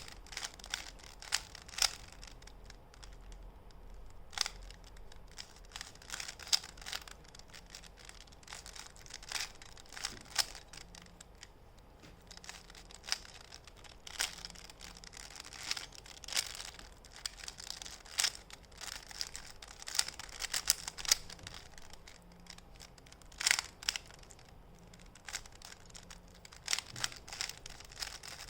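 A 3x3x3 Rubik's cube being turned by hand during a solve: irregular runs of quick plastic clicks and scrapes as the layers rotate, with short pauses between runs.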